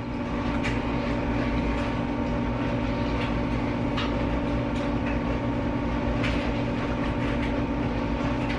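Steady machine hum with a few held tones over a low rumble, at an even level, with a few faint clicks.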